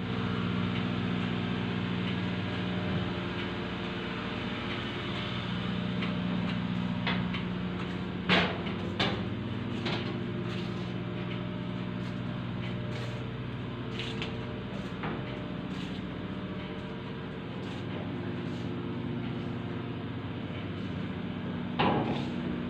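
Ship's engine-room machinery running: a steady drone with several low, even hum tones. A few sharp knocks come about eight seconds in and again near the end.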